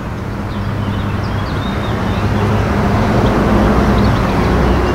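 A motor engine's steady low hum that grows gradually louder, as of an engine drawing nearer.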